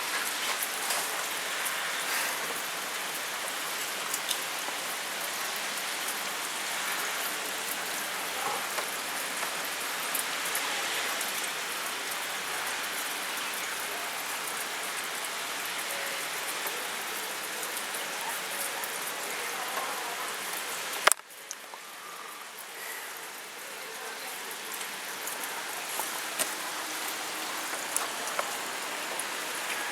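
Heavy rain falling steadily, a dense hiss with scattered drip ticks. About two-thirds of the way through a sharp click comes, after which the rain is suddenly quieter and slowly grows louder again.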